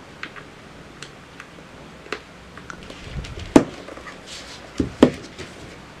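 Small clicks and knocks of a plastic alarm clock being handled as its power plug is pushed into the jack and the clock is turned over and stood on the table. The two loudest knocks come about three and a half and five seconds in.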